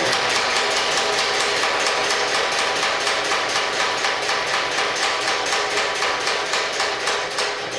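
Belt-driven mechanical power hammer striking a glowing steel billet in a rapid, even run of blows, with metal-on-metal clatter from the machine.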